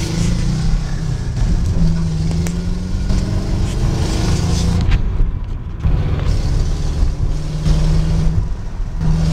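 Volkswagen Syncro on the move, heard from inside: a steady low engine drone over road noise, easing briefly about five seconds in.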